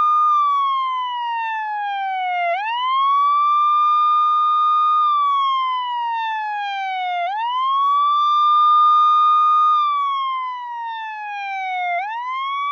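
Electronic siren-like wail, a clean tone that holds high, slides slowly down for about two seconds, then swoops quickly back up. The cycle repeats about every five seconds, three times over.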